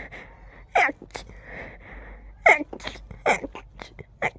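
A rapid run of stifled sneezes from an allergy sneezing fit. About five short, sharp bursts come in quick succession, the last few barely a second apart, with breathy intakes of air between them.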